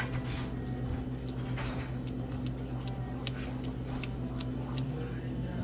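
Spatula stirring thick fruit-cake batter in a mixing bowl, with irregular light ticks as it knocks against the bowl, over a steady low hum.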